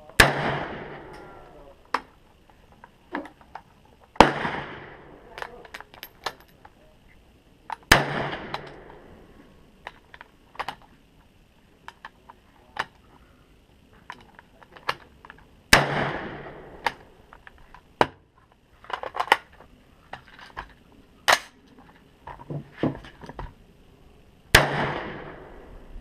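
AR-15 rifle in 5.56 fired in slow single shots: five loud reports, each ringing out for about a second, several seconds apart. Fainter sharp cracks fall in between.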